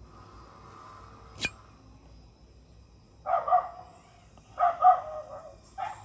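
A dog barking in two quick pairs of barks, about three seconds in and again near five seconds. A single sharp click comes earlier, about a second and a half in.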